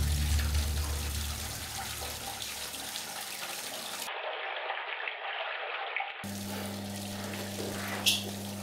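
Bathroom tap running into a sink, a steady hiss of water. A low music drone fades out over the first few seconds. For about two seconds in the middle the sound goes thin and muffled, and afterwards a low steady hum sits under the water.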